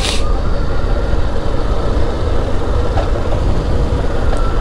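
Steady road and engine rumble heard from inside a moving car's cabin, with a brief hiss right at the start.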